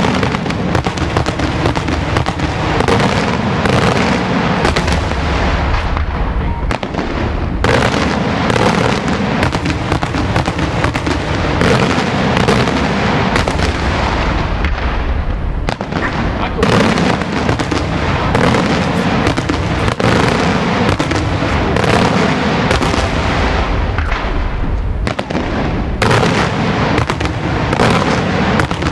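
Daytime aerial fireworks display: shells bursting overhead in a dense, almost continuous barrage of loud bangs, easing briefly three times before picking up again.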